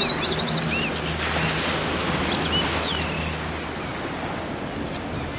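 Steady rush of surf and wind noise on a beach, with a few short, high seabird calls from the resting terns and gulls at the start and again around halfway through.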